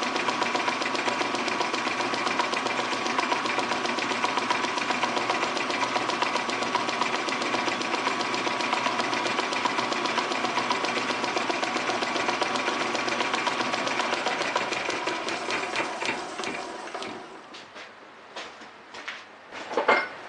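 Metal lathe running steadily with a fine, even mechanical whir while turning a pulley. It is switched off and spins down from about 15 seconds in, followed by a few sharp clicks and knocks near the end.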